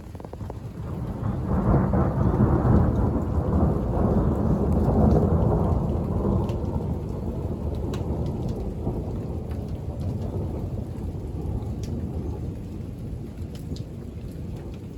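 Thunder rumbling during a rainstorm: a deep roll that builds over the first couple of seconds, peaks, then slowly fades away, with raindrops ticking throughout.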